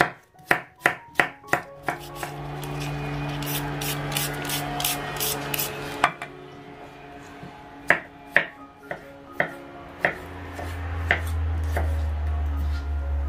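Kitchen knife chopping vegetables on a cutting board, sharp knocks in quick runs with pauses between. A low hum comes in near the end.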